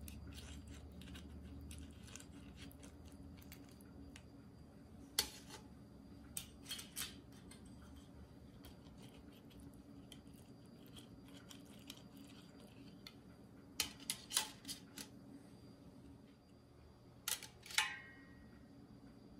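Thin aluminium leaf-shaped cake molds clinking as they are handled and set down in a perforated stainless steel steamer tray. There are a few short, light clicks, in small clusters about five seconds in, near the middle and near the end, against a faint low hum.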